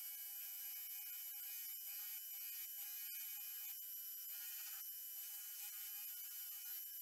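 Machine spindle motor spinning a cloth buffing wheel, a steady high-pitched whine and buzz, while a knife handle is buffed on the wheel with polishing compound.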